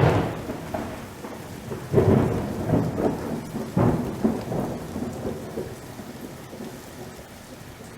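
Thunder rolling over steady rain: several rumbles in the first half, the loudest at the start, then fading away.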